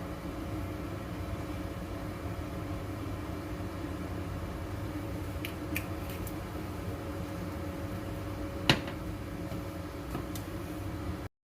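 Steady machine hum, like a running fan or appliance motor, with a few light clicks around five to six seconds in and one sharp click about nine seconds in. The sound cuts off abruptly just before the end.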